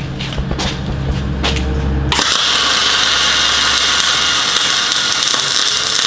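A low steady hum, then about two seconds in a MIG welding arc strikes and runs with a steady hiss and a little crackle: an ESAB Rebel EMP 235ic pushed into spray transfer with .035 wire at 500 inches a minute and 29 volts, under 90/10 argon-CO2 gas.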